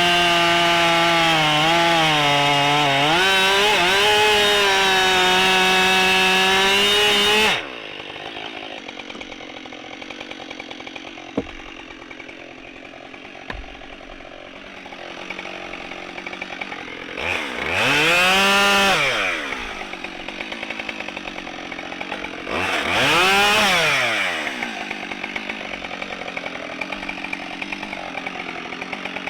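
Husqvarna 572XP two-stroke chainsaw running at full throttle, its pitch dipping and wavering under load as it cuts a big ash log. About seven and a half seconds in it drops abruptly to idle. It then idles, with one sharp click about eleven seconds in, and is blipped up to high revs and back down twice, a couple of seconds each time.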